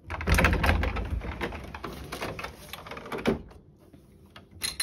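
A sliding door rumbling and rattling along its track for about three seconds, then a sharp click near the end.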